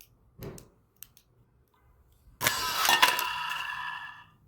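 Vacuum cleaner motor (universal motor with a suspected shorted winding) suddenly kicking on with a loud spark about two and a half seconds in, whirring with a steady whine for about two seconds, then dying away.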